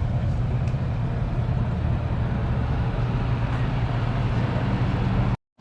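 Steady low drone of a motor vehicle's engine running, with a wash of noise over it; it cuts off suddenly near the end.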